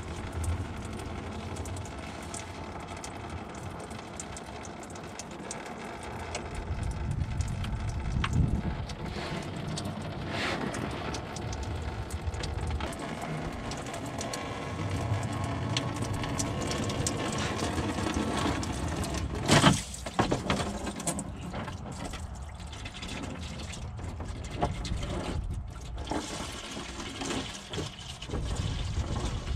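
Engine coolant draining from a 2002 Subaru Outback in a thin stream into a plastic drain pan: a steady trickle and splash of liquid. There is one sharp knock about two-thirds of the way through.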